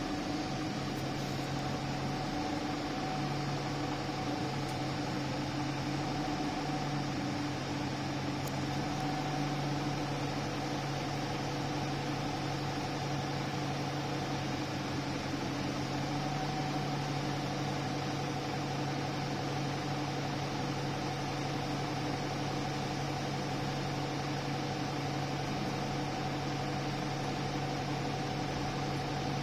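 Steady drone of an Alexander Dennis Enviro 300 single-deck bus's diesel engine, heard inside the passenger saloon. It holds a constant hum of several low tones under an even hiss, with no change in pitch or level.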